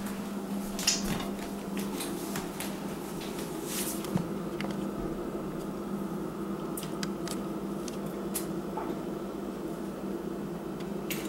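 Steady low hum throughout, with a few light clicks and soft knocks scattered over it.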